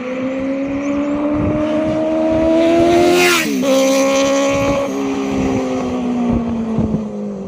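Benelli 600i inline-four motorcycle making a flyby: the engine note climbs steadily as it approaches under throttle, then drops sharply in pitch as it passes at its loudest, about three seconds in, and trails away with a slowly falling note.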